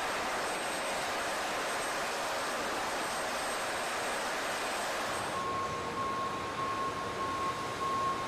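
Steady noise of machinery on a ship's flight deck, with a faint high whine. About five seconds in, the sound changes to a lower hum with a beep repeating about twice a second.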